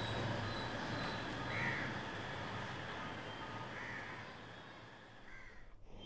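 Three short bird calls about two seconds apart over a quiet, steady room background with a low hum; the sound drops out briefly near the end.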